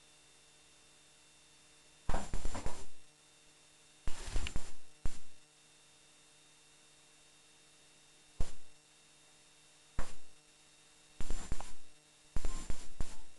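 Steady faint electrical hum from a handheld camcorder, broken six times by short bursts of handling noise as the camera is moved about.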